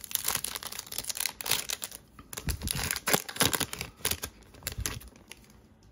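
Wrapper of a 2020 Donruss Optic football card pack crinkling and tearing as it is pulled open by hand, the crackling dying down about five seconds in.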